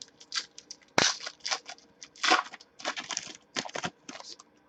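Trading cards being handled and slid past one another: a run of quick, quiet scrapes and ticks, with one sharp click about a second in.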